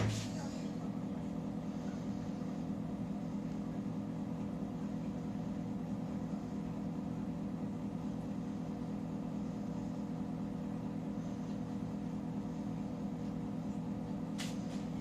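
Panasonic NP-TH1 dishwasher running with a steady low hum, with a short click near the end.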